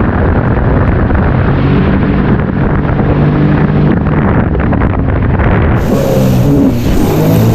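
Sea-Doo personal watercraft engine running under way, a steady engine note with low rumbling wind buffeting the microphone. About six seconds in the sound turns brighter, with a high hiss added.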